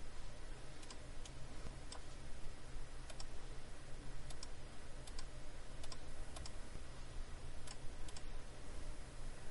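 Computer mouse clicking: about fifteen light, sharp clicks at irregular spacing, some in quick pairs, over a faint steady low hum.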